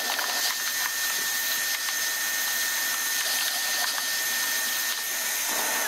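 Household vacuum cleaner running with a steady high whine as its dusting-brush nozzle sucks dust from a robot vacuum's brush compartment. The motor is switched off at the very end, the whine falling as it spins down.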